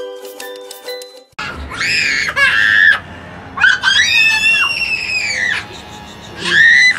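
A short stretch of light, plinking music that cuts off about a second and a half in. Then young children squeal with delight in three long, high-pitched shrieks.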